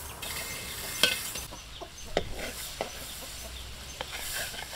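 Metal ladle knocking and scraping against a wok while beaten egg is stirred, with a few sharp clacks about a second apart over a light sizzle of the egg frying in oil.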